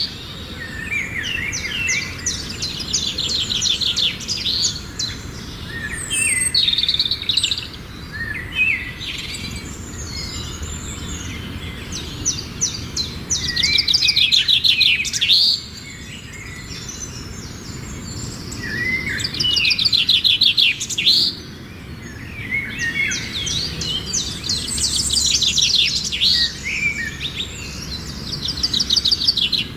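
Sparrows chirping in long bouts of rapid trilled chirps, with short pauses between bouts.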